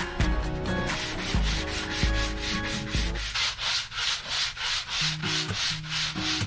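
Sandpaper rubbed back and forth by hand in quick, repeated strokes, about three a second in the second half.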